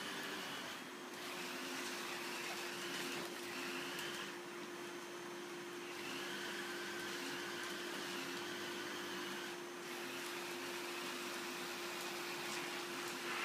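Vacuum cleaner running steadily, a constant hiss with a steady hum, the hiss dipping briefly three times.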